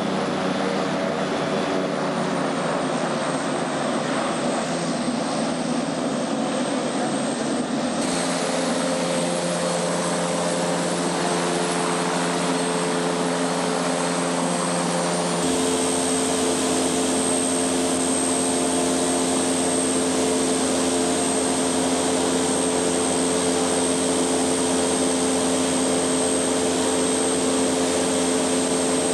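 Goodyear blimp's engines and ducted propellers running steadily close by, a continuous droning hum whose tone shifts twice, about eight and fifteen seconds in.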